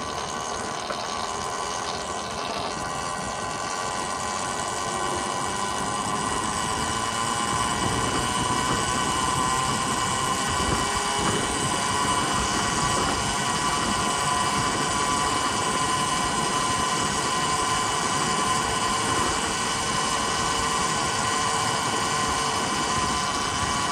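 Volcon Grunt electric motorcycle under way at low speed: a steady electric-motor and drivetrain whine over tyre and wind noise. It grows a little louder as the bike speeds up over the first several seconds, then holds steady.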